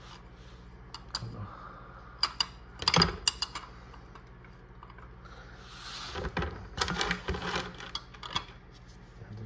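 Metal hand tools and an oil drain pan clinking and clattering during an oil change, with a cluster of sharp ringing clinks about a third of the way in and more clatter past halfway.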